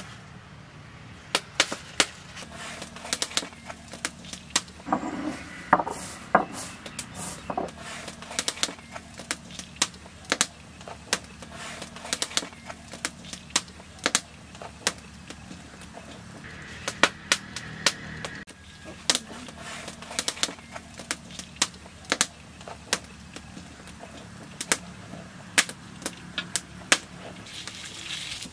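Irregular sharp clicks and knocks, at times several a second, from cooking work at a wood-fired clay hearth and a stone grinding slab.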